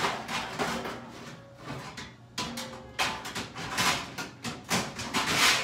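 Metal pans clattering and knocking together as someone rummages through a kitchen cabinet to pull out a baking pan. The knocks and rattles come in a rapid irregular series, loudest near the end.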